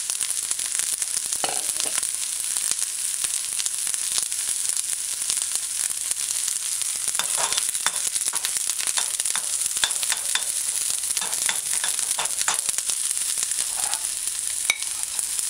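Sliced onions sizzling in coconut oil in a stainless steel skillet as they sauté. A few sharp clicks come from a cooking spoon stirring and scraping against the pan.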